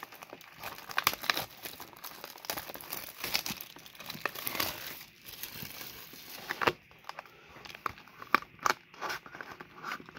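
Plastic shrink-wrap on a Pokémon booster box crinkling and tearing as it is pulled off. From about two-thirds in come separate sharp cardboard clicks and scrapes as the box's display lid is folded open.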